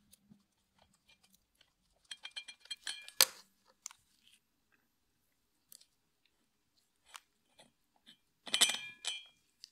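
Metal tools and bolt hardware clinking while the nuts of a driveshaft flex disc are undone by hand with a wrench. There is a run of metallic clicks about two seconds in, ending in a sharp clack, then a few scattered ticks and a jangling clatter near the end.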